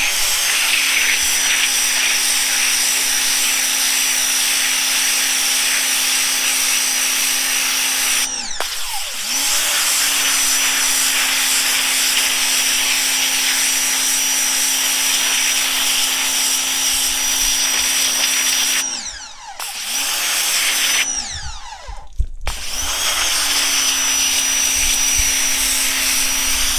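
Ryobi 1600 psi electric pressure washer running, its motor giving a steady whine under the hiss of the water jet spraying onto fabric on concrete. The motor stops and spins back up three times, once about a third of the way in and twice close together about three quarters through, as the spray trigger is let go and squeezed again.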